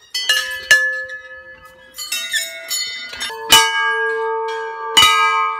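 Hanging brass temple bells struck one after another, about six strikes in a row; each clang rings on in several steady tones that overlap with the next, the loudest strikes coming about three and a half and five seconds in.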